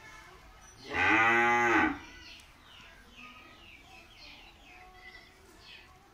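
A cow moos once, a single call of about a second starting about a second in, its pitch rising slightly and then falling. Small birds chirp faintly throughout.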